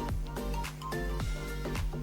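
Background music with a steady beat, sustained synth-like notes and a constant bass.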